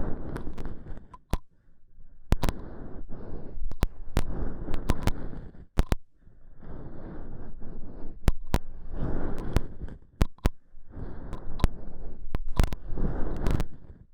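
Close-miked ASMR trigger sounds: crackly rubbing in stretches of a second or two with short gaps, and sharp clicks scattered between them.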